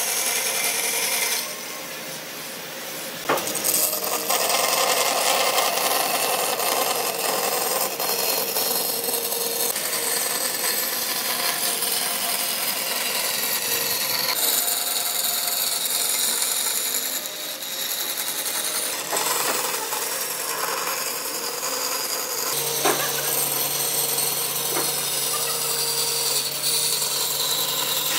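A power tool abrading wood, a continuous rasping, rubbing noise that eases off briefly about 1.5 s in and comes back after a sharp click; a low steady hum joins in near the end.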